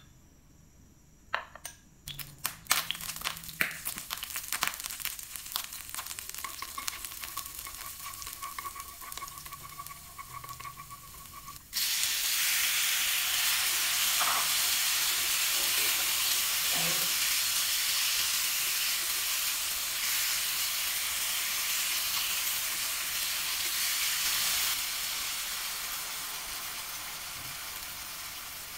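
Hot oil crackling and spitting in a frying pan, then about twelve seconds in a sudden loud sizzle as chicken strips go into the pan and are stirred with chopsticks. The sizzle holds steady and eases off near the end.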